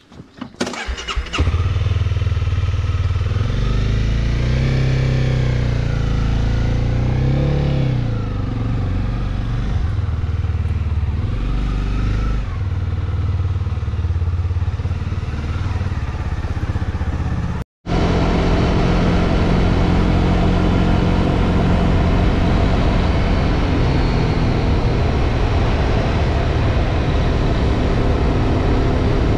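Honda CB300R single-cylinder motorcycle engine under way, coming in about a second in and then rising and falling in pitch as it accelerates and eases off. It drops out for an instant near the middle and then runs at a steadier pitch.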